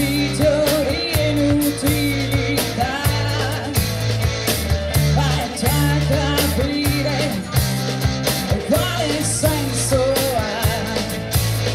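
Rock band playing a song with Italian lyrics: a woman sings the melody over electric guitar, bass guitar and a drum kit keeping a steady beat.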